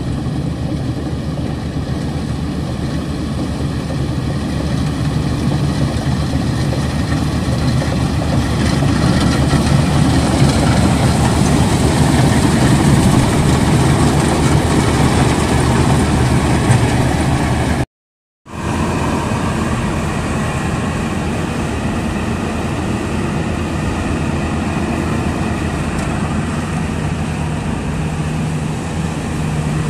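Maxxi Bimo 102L rice combine harvester running steadily as it cuts rice, its engine and harvesting machinery making a constant drone. The sound cuts out for a moment about eighteen seconds in.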